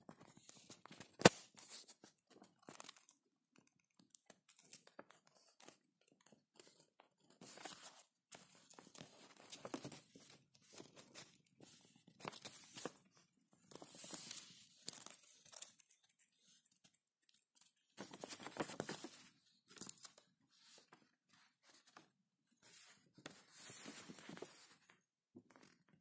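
A hamster gnawing and scrabbling at a pencil on a sheet of paper: irregular bursts of crunching, scratching and paper rustling, with a single sharp tap about a second in.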